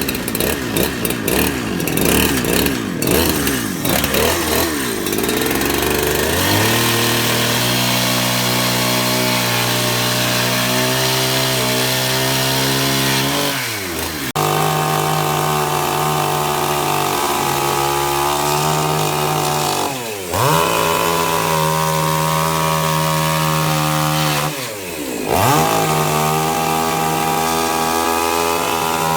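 Petrol two-stroke chainsaw running, revving unevenly at first, then held at high revs about six seconds in. The throttle is eased off and opened again three times, so the engine note drops and climbs back.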